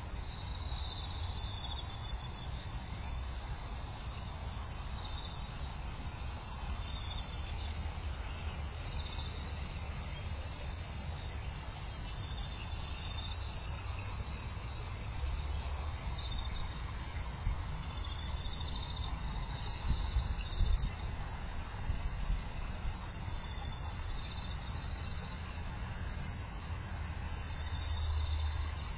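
Dense chorus of autumn insects singing from the rice fields: a continuous high, fast-pulsing trill, with a second, lower trill coming and going. A low rumble runs underneath.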